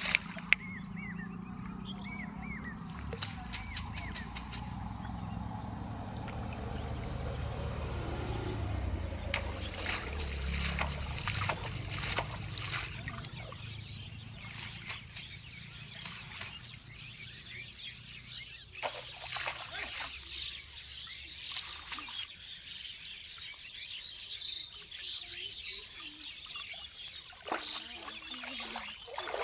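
Water splashing and sloshing as a fishing net is worked and pulled through shallow river water, with scattered sharp splashes and a few short bird calls.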